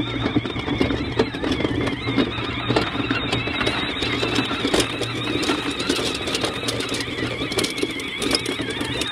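Battery-powered ride-on toy ATV driving through shallow meltwater. Its electric drive motors whine steadily, and water splashes and sloshes around the wheels, with small clicks and knocks from the rough ride.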